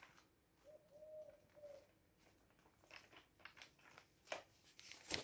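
Near silence, with a faint dove-like coo in three notes about a second in, followed later by a few faint soft ticks and rustles.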